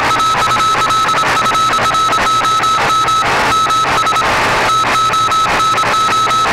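Morse code (CW) signal from the 20-metre amateur radio band, heard as a single high beep tone keyed on and off over a bed of radio static, with short breaks about three and four seconds in.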